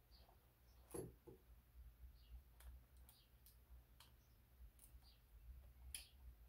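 Faint, irregular small clicks of a thin terminal release tool probing and prying in the pin cavities of an ECU's plastic wiring connector, the sharpest about a second in and near the end, over a low steady hum.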